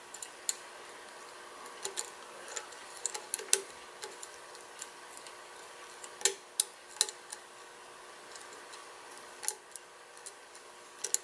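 Lock-pick hook and tension wrench clicking and tapping irregularly against the pins inside the keyway of an ISEO Aditus shutter padlock as the pins are probed for a binder. The clicks are faint and sharp, scattered unevenly.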